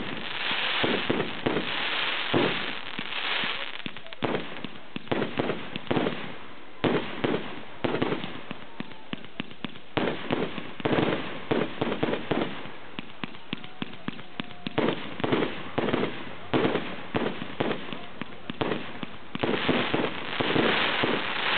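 Aerial fireworks bursting overhead: a fast, continuous run of bangs and pops, several a second, over a crackling hiss that is thickest near the end.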